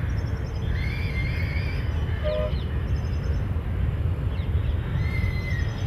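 A steady low rumble with scattered bird calls over it: short chirps about a second in and again near the end, and a brief two-note call in the middle.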